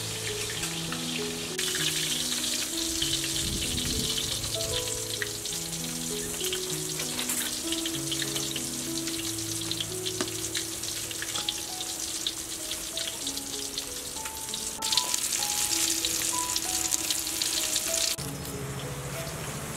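Fish frying in hot oil in a wok: a steady crackling sizzle that starts a second or so in, gets louder for a few seconds near the end, then cuts off suddenly. Soft background music plays underneath.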